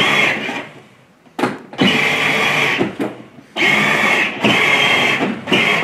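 Power Wheels Corvette Stingray ride-on toy car's electric drive motors and plastic gearboxes whining as it drives on a hardwood floor, in stop-start spurts: a short run, a pause about a second in, then a longer run with brief breaks as the pedal is let off and pressed again.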